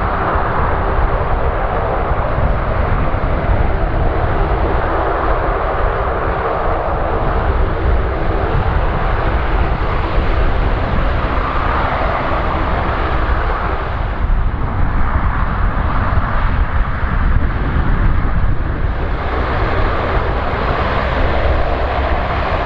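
Lockheed C-130H Hercules's four Allison T56 turboprop engines running on the ground, a steady propeller drone with a whoosh that swells and fades every few seconds.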